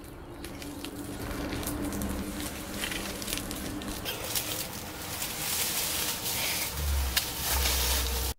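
Footsteps crunching on dry leaf litter over a faint steady drone that builds slowly louder. A deep rumble joins near the end, and it all cuts off suddenly.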